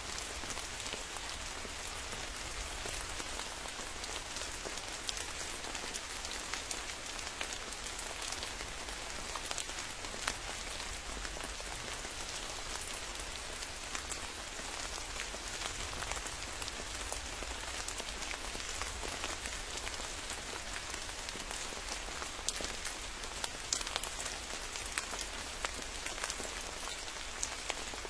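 Steady rain, with many individual drop hits standing out as sharp ticks over an even hiss.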